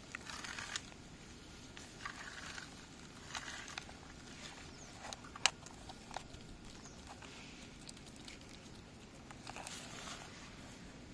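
Scattered light clicks and short rustles of toys being handled, with one sharper click about five and a half seconds in.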